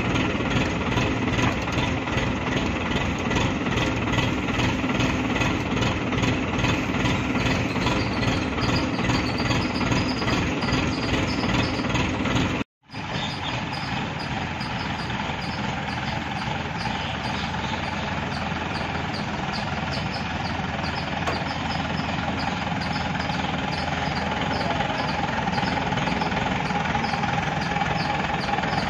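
Diesel engine of an ACE mobile hydraulic crane running steadily while the crane holds up a load. The sound cuts out for an instant about halfway through and then carries on.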